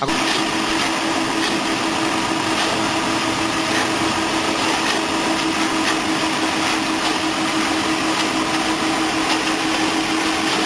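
A motor or engine running steadily: a constant hum under a loud, even hiss, starting abruptly and holding unchanged, with faint ticks here and there.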